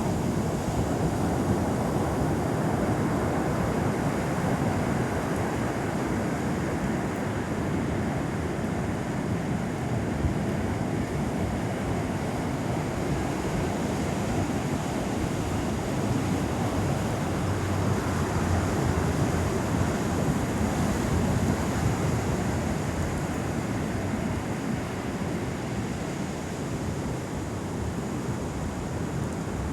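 Ocean surf washing steadily, with wind buffeting the microphone, a continuous rushing noise that swells a little about two-thirds of the way through.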